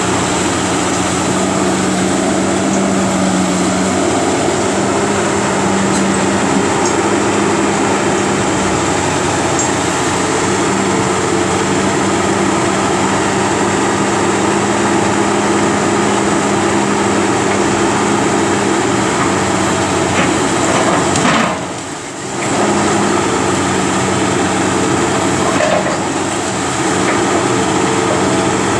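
Caterpillar 330B hydraulic excavator's diesel engine running steadily under load as the demolition grapple works a brick wall. There is a brief dip in the engine sound about three-quarters of the way through.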